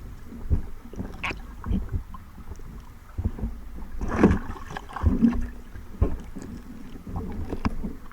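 Water sloshing and splashing close to the microphone, with irregular dull thumps.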